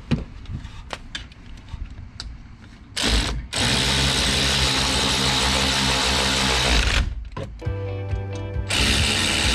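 Electric ratchet running a brake caliper bolt in, in long bursts: one from about three seconds in to about seven seconds, and another near the end, after a few faint clicks.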